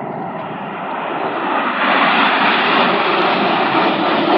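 Red Arrows' BAE Systems Hawk T1 jets flying past in formation, a steady jet-engine rush that grows louder about a second and a half in and then holds.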